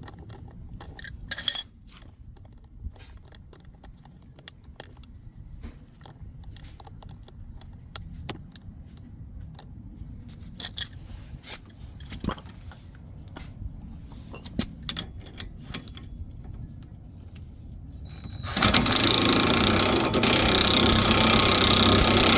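Metal tool parts of a wheel bearing press clinking and clicking as they are handled and fitted, with a louder cluster of clinks near the start. About 18 seconds in, a loud, steady machine noise starts abruptly and keeps going.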